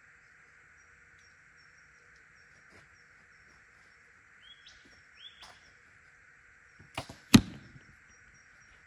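A PSE Carbon Stealth bow being shot about seven seconds in: a sharp click, then a louder thump with a short low ring.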